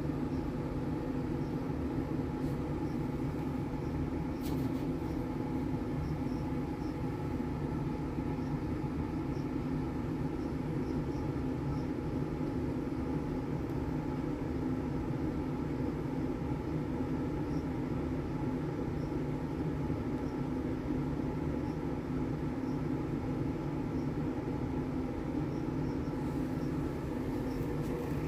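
Steady mechanical hum from a small running motor, with several fixed tones over a low drone and a few faint high ticks now and then.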